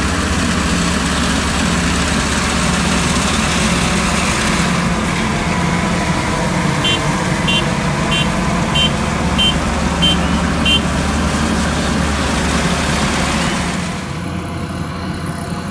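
Rice combine harvester engine running steadily. Partway through, seven short, evenly spaced high beeps sound in quick succession. Near the end the engine noise gets quieter.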